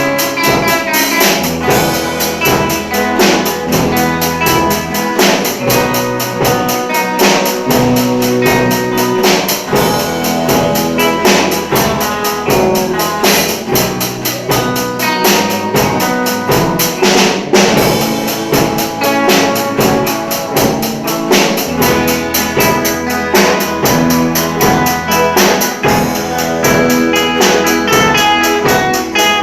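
Music with a steady drum beat under melodic instruments.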